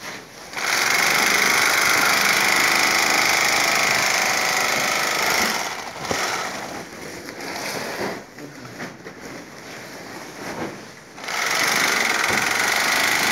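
Handheld electric bag-closing sewing machine running as it stitches shut the top of a sack. A steady run of about five seconds, then a pause of several seconds with handling knocks and rustle, then the machine starts again near the end.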